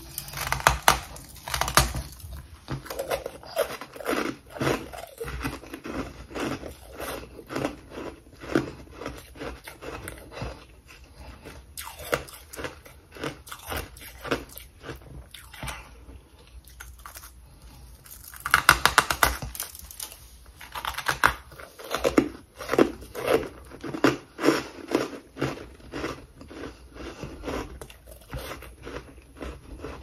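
A person biting and chewing freezer frost (ice), crunching in quick repeated chews, with a louder burst of bites about two-thirds of the way through.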